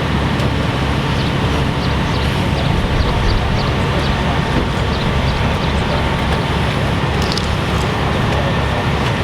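Steady low engine drone of equipment running during a vehicle extrication, with a rumble underneath and a few faint light ticks.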